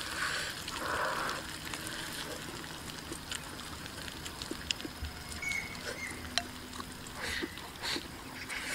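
Quiet eating sounds of a person eating rice with chopsticks: chewing and slurping, with a few light clicks of chopsticks against a bowl.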